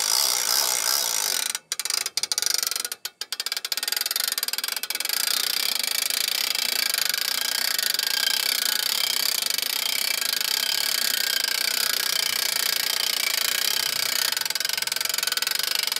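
Hand-cranked self-locking winch being wound steadily, giving a rapid, even clicking as it draws its strap in and lifts the camper trailer's lid. The cranking pauses briefly twice near the start.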